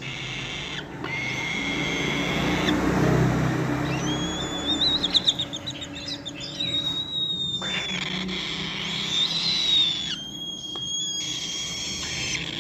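Cockatoo chicks calling with long, high, wavering cries, with a quick trill about five seconds in.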